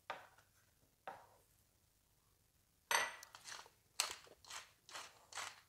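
Two soft knocks as whole fish are turned over on a plate, then about three seconds in a clink followed by a quick run of grinding twists from a hand pepper grinder.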